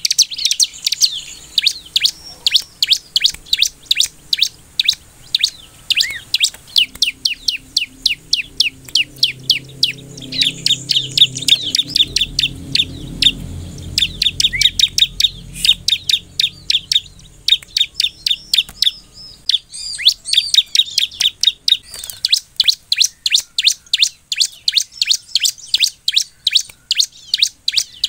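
Bar-winged prinia (ciblek) singing steadily: a long, rapid run of sharp, high chirps, several a second, the persistent full song that keepers call gacor.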